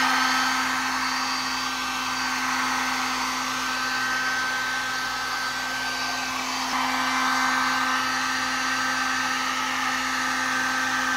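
Heat gun running steadily: an even rush of blown air with a constant motor hum.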